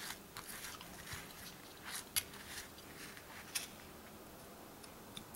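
Soldering iron tip rubbing and tapping on old solder joints of an MCP355 pump's circuit board: faint scratchy scraping with scattered light clicks, and a sharper click about two seconds in.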